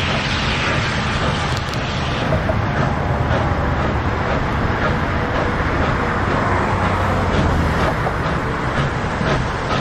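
Steam locomotive pulling a passenger train, its exhaust chuffing in a steady beat that quickens slightly, over a continuous rumble. A strong hiss of steam fades in the first couple of seconds.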